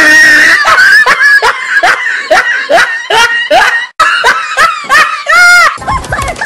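Loud, hearty laughter: a quick, even run of 'ha' syllables, about two or three a second, breaking into a high squeal about five seconds in.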